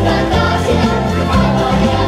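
Upbeat dance music with singing over a steady beat and a bass line that moves from note to note.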